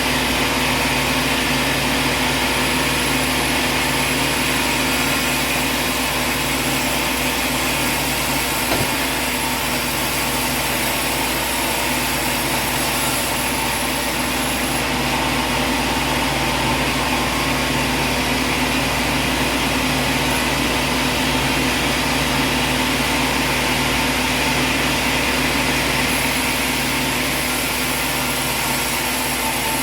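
A machine or engine running steadily for the whole stretch: a continuous drone with a few constant tones over a broad hum.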